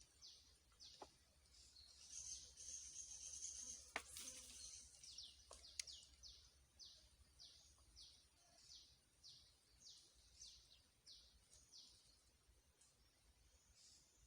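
Faint bird call: a long series of short, high notes, each falling in pitch, repeated about twice a second, with a few light clicks.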